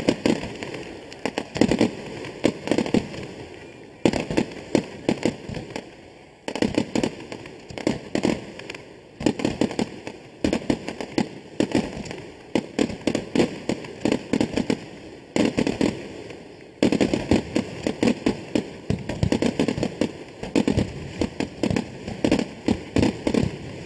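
Fireworks display: a continuous barrage of sharp bangs and crackling, coming in dense clusters that start up again abruptly several times.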